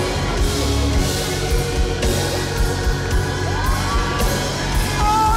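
Worship music with a steady beat and held chords, with voices rising and falling over it now and then.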